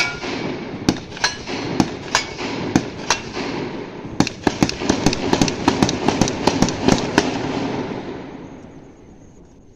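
Rifle fire: many sharp shots in quick, irregular succession, several a second at times, with a rolling echo off the surrounding hills between them. The echo fades away near the end, after the last shot.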